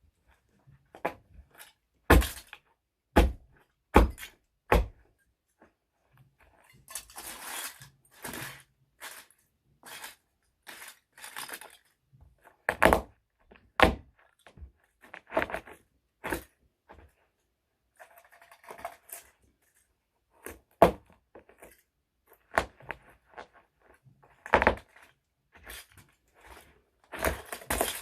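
Little toy trucks being crushed: a series of irregular sharp thunks and cracking crunches. Four loud knocks come in quick succession a couple of seconds in, with longer crunching stretches in between and again near the end.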